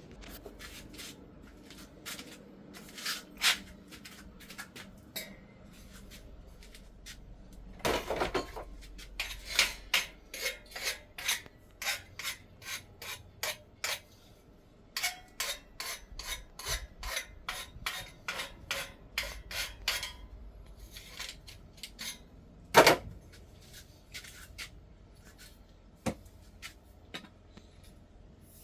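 Hand work on aluminum crab-scoop parts: runs of short sharp metallic taps and clicks, about two a second at times, with a louder knock about 8 seconds in and another near 23 seconds.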